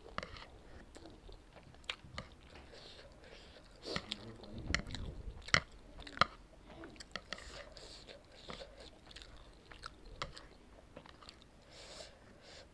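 A person chewing and biting a mouthful of instant noodles close to the microphone, with many small sharp mouth clicks. It is loudest about four to six seconds in.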